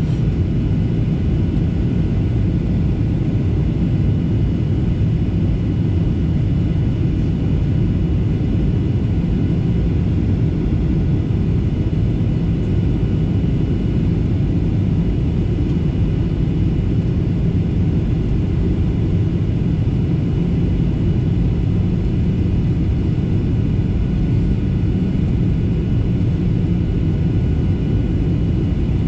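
Cabin noise of a Boeing 737-800 on its descent to land, heard from a window seat over the wing: a loud, steady low rumble of airflow and its CFM56-7B turbofan engines, with faint steady high tones above it.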